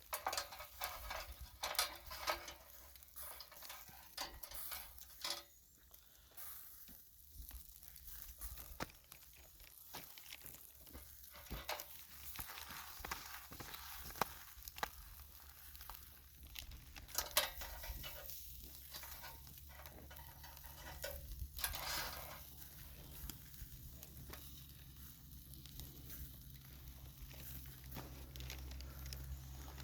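Liver skewers sizzling as they grill, with scattered crackles and pops.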